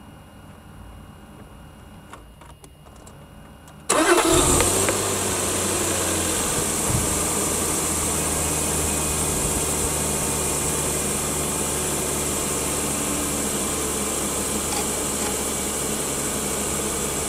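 BMW E36 323i's 2.5-litre straight-six starting about four seconds in, a brief rise in revs as it catches, then idling steadily as it warms up after cooling-system work.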